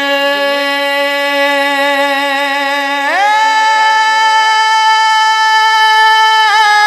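A man singing a naat unaccompanied into a microphone, drawing out one long held note that leaps to a higher pitch about three seconds in and is held, with a slight waver near the end. The rise in pitch is repeated several times by the sound system's echo.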